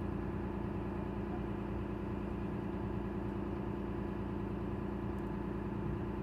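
Truck diesel engine idling steadily, an even hum that does not change.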